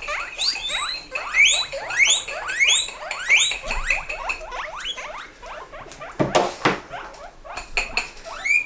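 Guinea pigs wheeking: a fast run of short, rising, high-pitched squeals, several a second, the begging call as food is brought to the cage. The squeals thin out after about five seconds, a brief rustle comes about six seconds in, and a few more squeals come near the end.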